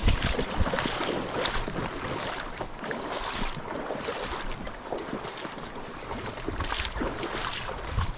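Fast-flowing creek water rushing steadily, with scattered rustles and gusts of wind buffeting the microphone, the strongest right at the start and another near the end.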